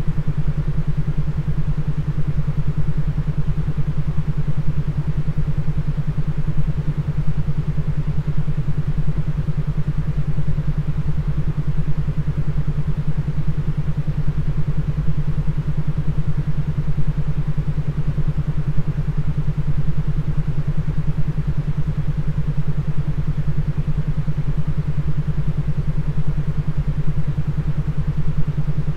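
Synthesized low droning tone with a fast, even pulse over a bed of hiss, unchanging throughout: a brainwave-entrainment "beat" for headphone listening, meant to induce arousal.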